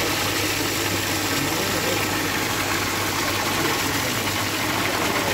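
Water cascade pouring from an overhead spout into a pool, a steady, dense splashing rush with a constant low hum beneath it.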